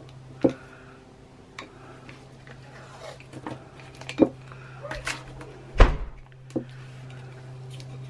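Handling noises from taping a china teacup onto its saucer: a scatter of light taps and knocks of porcelain and a roll of masking tape against the table, the loudest a dull thump about six seconds in. A steady low hum sits underneath.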